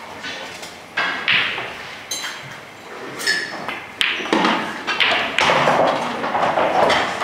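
Pool balls being played on a pool table: sharp knocks of the cue striking the cue ball and balls clicking against each other, with duller thuds, several times.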